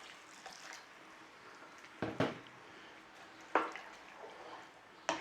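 Thick curry sauce being stirred in a pan with a little water: soft wet squelching, broken by a few sharp knocks of the spoon, two close together about two seconds in and more a second and a half apart after that.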